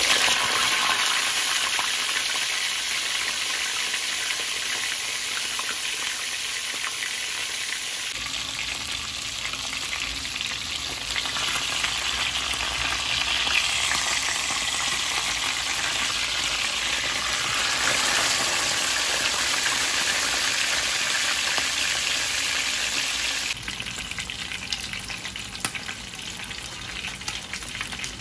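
Whole tilapia deep-frying in hot oil in a pan: a dense, steady sizzle, with a wooden spatula and tongs prodding and scraping as the fish is lifted and turned. The sizzle drops in level for the last few seconds.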